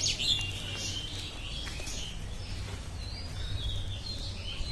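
Small birds chirping in short, high calls scattered through, over a low steady rumble.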